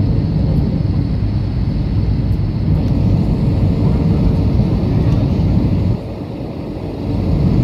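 Airliner cabin noise on descent: a steady, loud low roar of engines and airflow heard from a window seat, with a faint steady hum. About six seconds in the roar dips noticeably for a second, then rises again.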